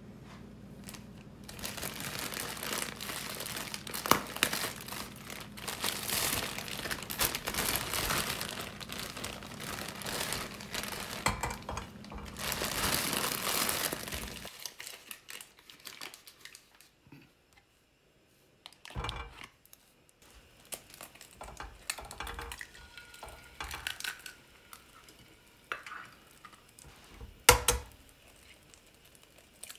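Kitchen handling sounds: about fourteen seconds of crinkling and rustling, then scattered light clinks and knocks, and one sharp crack near the end as an egg is broken into a frying pan.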